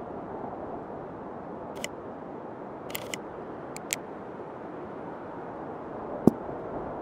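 Steady low rushing noise of a sailing yacht under way, with a few sharp clicks and one loud knock about six seconds in.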